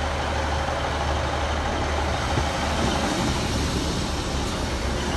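ScotRail Class 156 diesel multiple unit at the platform, its underfloor diesel engine running with a steady low drone.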